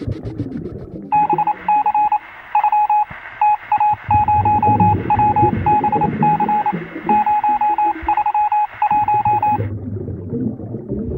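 A series of short electronic beeps on one steady pitch, in quick irregular groups like a telephone or signalling tone, over low background sound. The beeping starts about a second in and stops shortly before the end.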